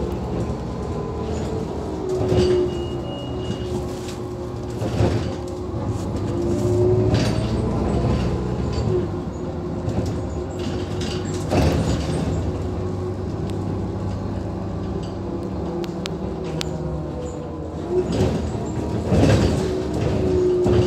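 Inside an Irisbus Citelis 12 GNV city bus under way: the steady hum of its natural-gas engine and drivetrain, with the body and fittings clunking and rattling a few times.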